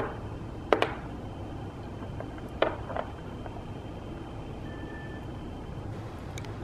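A few light clicks and taps of small cookies being picked up and knocked against a plastic high-chair tray: two about a second in, two more around three seconds in, over a steady low room hum.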